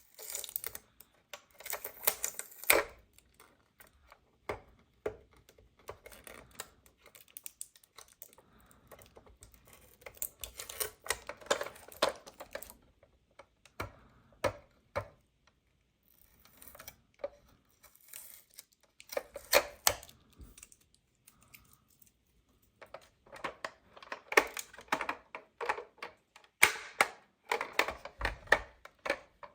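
Hands handling plastic toys and packaging: irregular clusters of small clicks, taps and rustles with short quiet gaps between them.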